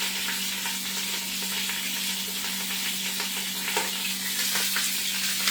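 Chuck roast searing in hot olive oil in a pan on high heat, sizzling steadily, with a few pops of grease.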